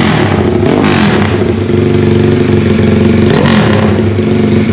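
Drag-tuned underbone motorcycle engine blipped on the throttle through an open aftermarket racing exhaust, its pitch rising sharply and dropping back twice, near the start and about three and a half seconds in, with a rough, lumpy idle between the revs.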